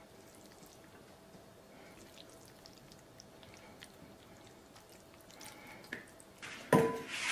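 Faint soft wet ticks of stir-fried noodles being lifted and dropping back onto the plate, then near the end a sudden clank of metal tableware with a brief ring.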